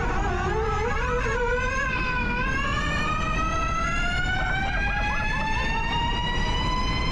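Electric RX1e rallycross car's motor and transmission whine, heard from inside the cockpit. The pitch wavers and dips twice in the first couple of seconds, then climbs smoothly and steadily as the car accelerates.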